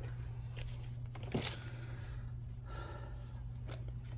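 A single sharp metallic click about a second and a half in, with faint scraping of brake parts being handled, over a steady low hum.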